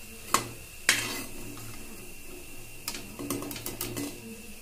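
A flat metal spatula clinking and scraping against a kadai (wok) as shallow-fried potato pakoras are lifted out of the oil. Two sharp clinks come in the first second, then a quicker run of clinks about three to four seconds in.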